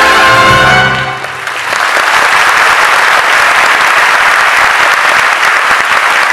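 A big band and choir end on a held final chord that cuts off about a second in, followed by an audience applauding steadily.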